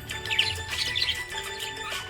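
Budgerigar chirping rapidly in the first second or so, over background music with held notes.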